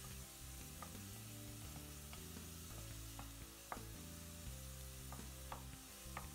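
Diced onion sizzling in hot oil in a pot while a wooden spoon stirs it, with a few sharp knocks of the spoon against the pot. Soft background music runs underneath.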